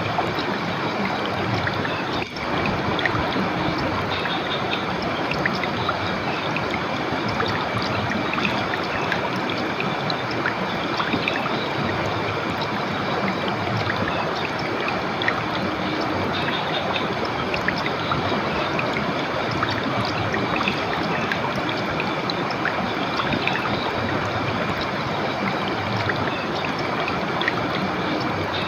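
River water flowing steadily, a continuous rushing and trickling, with a brief dip about two seconds in.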